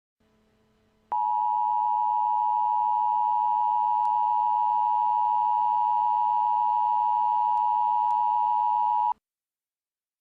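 Emergency Alert System attention signal: a steady two-tone alarm tone that starts about a second in, holds for about eight seconds and cuts off abruptly. It signals that an emergency alert, here a tornado warning, is about to be read.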